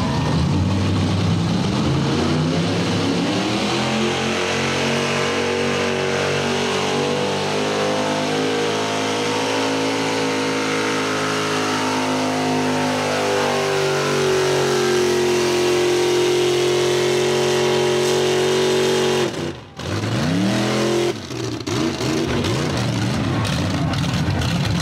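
Mega truck engine revving up hard and held at high revs under full throttle for about fifteen seconds, its pitch climbing slowly. Near the end it cuts out suddenly, then the revs rise again.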